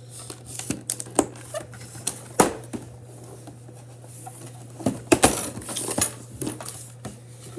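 Cardboard Pokémon card collection box being handled and pried at by someone struggling to open it: scattered taps, knocks and scrapes, the sharpest about two and a half and five seconds in, over a steady low hum.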